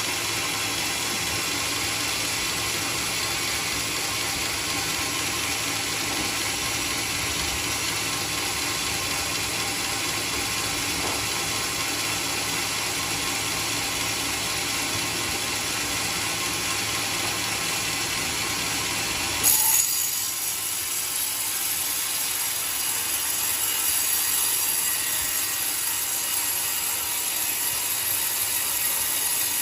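Portable sawmill running steadily as it cuts a coconut log. About two-thirds of the way through there is a brief louder burst, and the sound turns abruptly higher and hissier.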